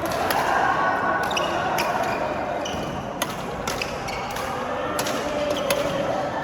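Badminton rally: rackets smack the shuttlecock in a string of sharp hits every half second to a second, with short squeaks of shoes on the court and voices murmuring in a large hall.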